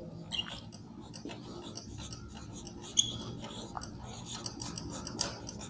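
A marker pen writing words on a paper chart: faint scratching and rubbing of the tip across the paper, with light taps and one sharper tick about three seconds in.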